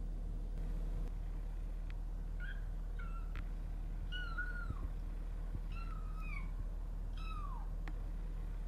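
Kitten mewing five times in short high-pitched calls, each falling in pitch at the end, over a steady low hum.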